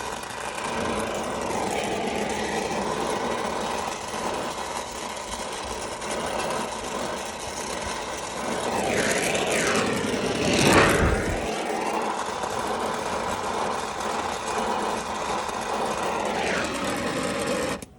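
Brazing torch flame hissing steadily while heating a 3/8-inch copper refrigerant line for a brazed joint, swelling louder about halfway through.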